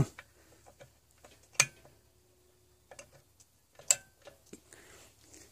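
Sharp clicks and light ticks from a clamp-on heat lamp's metal clamp and reflector being handled and positioned under a wire cage. The two loudest clicks come about a second and a half in and near four seconds in.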